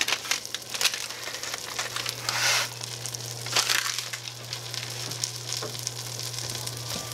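Rice and small pasta pieces sizzling and crackling as they brown in melted butter in a stainless steel saucepan, with a few louder rustles and a steady low hum underneath.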